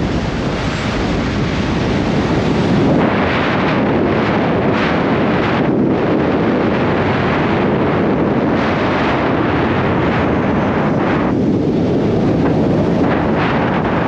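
Wind buffeting the microphone of a car driving along, a loud rushing noise that surges and eases every second or so.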